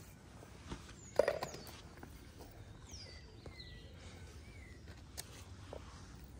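A few short, high bird chirps that glide down in pitch, in an open garden, with one brief louder sound about a second in.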